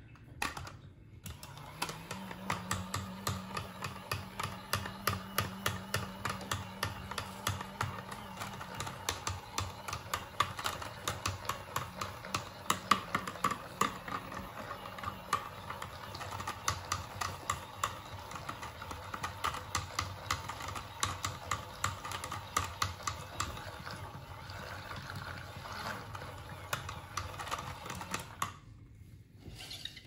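A mini makeup-brush washing machine runs with a brush standing in its soapy tub: a steady small-motor hum under a fast, uneven clicking rattle. It starts about a second in and stops shortly before the end.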